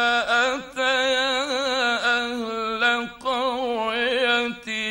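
A man reciting the Quran in the ornamented mujawwad style, drawing out long melodic notes with wavering melismas and two brief breaks between phrases. It is an old 1950s radio recording.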